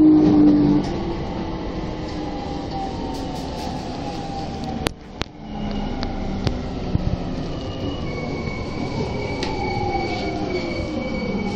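Tokyo Metro Tozai Line electric train heard from inside the car as it brakes into a station: a whine that falls in pitch as the train slows, over the running noise of wheels on rail. There are a few sharp clicks about five seconds in, and a high, steady squeal joins from about eight seconds in as the train comes to a stop.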